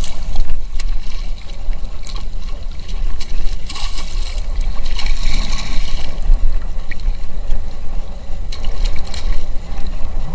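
Water splashing and sloshing around a kayak in irregular bursts as a hooked fish thrashes at the surface beside it, over a steady low rumble.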